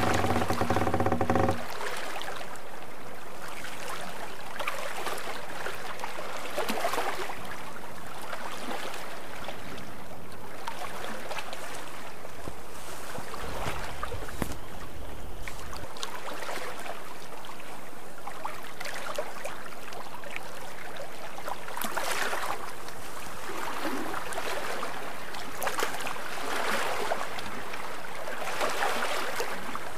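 Water rushing and splashing along a sailboat's hull as it sails, swelling every few seconds with the waves. A short pitched tone cuts off about a second and a half in, and a low rumble comes in for a few seconds near the middle.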